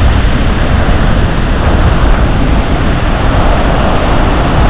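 Loud wind noise on the microphone over the steady wash of breaking ocean surf.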